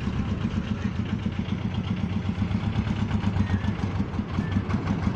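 Railroad speeder car's small engine running with a rapid, even beat as the car rolls along the track.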